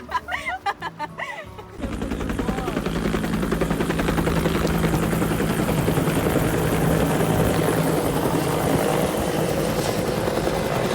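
Helicopter rotor and engine, loud and steady with a fast, fine blade chop, starting abruptly about two seconds in and cutting off just after the end.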